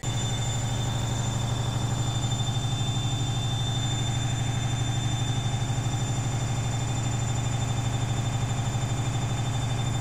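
Zanussi 7 kg front-loading washing machine on its spin cycle, the drum spinning at speed. It makes a steady loud hum with a fast, even pulse and a high motor whine above it, starting abruptly.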